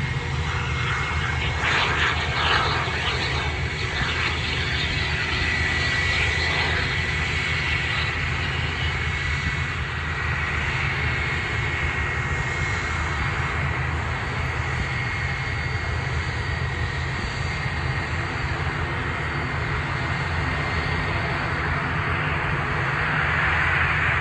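Airbus A320-232's IAE V2500 turbofan engines whining at taxi power: a steady high-pitched tone over a low rumble, swelling a little near the end.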